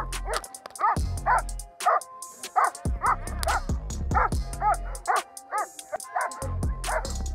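Doberman Pinscher on a leash barking repeatedly and aggressively at a decoy, about two barks a second: protection-dog bite-work, the dog showing drive at the helper.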